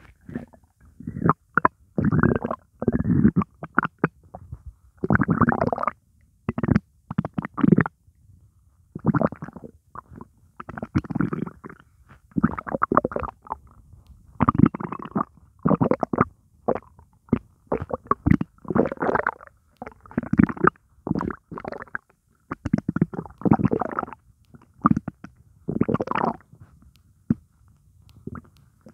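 Hungry human stomach growling and gurgling in an irregular string of bursts, one every second or two, with only water in it.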